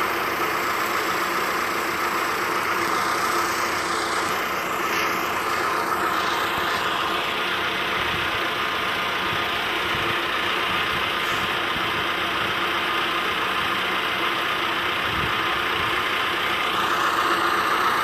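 Engine of a tracked bucket lift running steadily.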